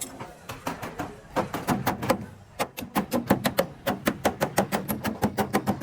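Rapid hammer blows on sheet metal, a few at first and then about five or six a second from about a second and a half in.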